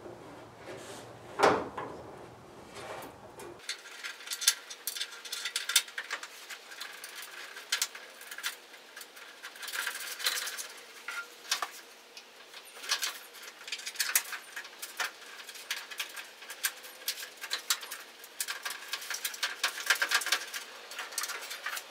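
Hands working metal parts and tools at the front of a 1963 Chevy pickup's grille: a thump about a second and a half in, then scattered clicks, taps and light scrapes.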